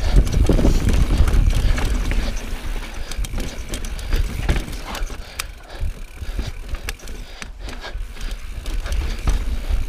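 Transition Sentinel mountain bike ridden over rocky slickrock singletrack: tyres rolling and knocking over rock, with chain and frame rattling as many sharp clicks. A heavy wind rumble on the microphone is strongest in the first few seconds and then eases.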